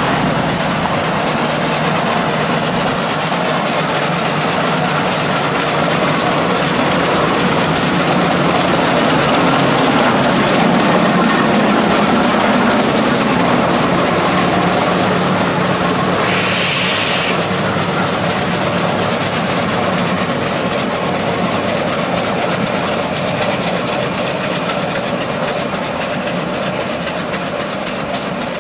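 Fowler steam road locomotive working hard up a steep hill: its exhaust beats and the clatter of its motion run steadily as it passes and pulls away, easing slightly near the end. A brief hiss about sixteen seconds in.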